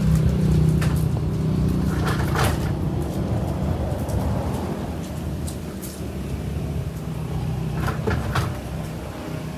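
Steady low engine hum, like a motor vehicle running, with a few short clicks and rattles about two seconds in and again near the end.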